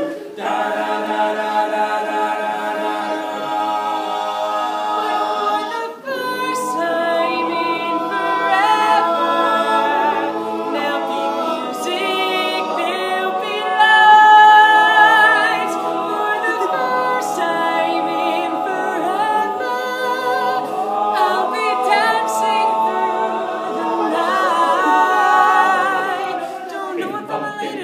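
Male a cappella group singing in close harmony, one soloist over the others' backing voices, with a brief break about six seconds in.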